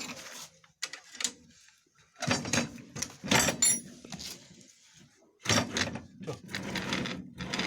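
Knocks and clanks of metal parts being handled on a homemade knife grinder. From about five and a half seconds in comes a longer rolling, scraping run: the motor carriage sliding on its bearings along tubular guide rails, with the motor switched off.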